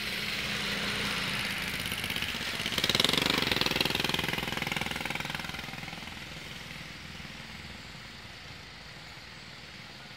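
A small engine running with a fast, even firing rhythm, like a motorbike. It swells loudest about three seconds in, then fades gradually.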